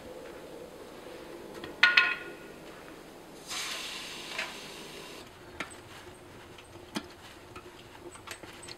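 Two sharp metallic clinks about two seconds in, then a couple of seconds of rustling as the man goes into the canvas tent, followed by a few faint sharp clicks.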